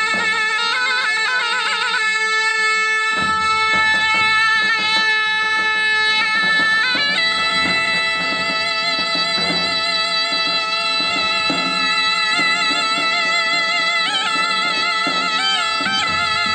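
Zurna playing a loud, wavering, ornamented folk melody over davul drum beats. The drums come in about three seconds in.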